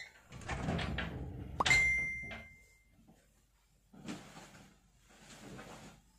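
A wooden bedroom door pushed shut: a sharp latch click about a second and a half in, with a short ringing tone after it. Then soft rustling as a person climbs onto a bed.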